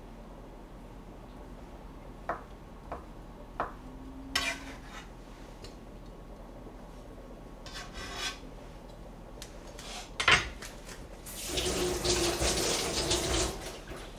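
Kitchen knife tapping on a plastic cutting board while slicing sausage: a few sharp ticks, then scattered knocks with one louder knock. Near the end comes about two seconds of louder scraping as the sliced sausage is moved off the board.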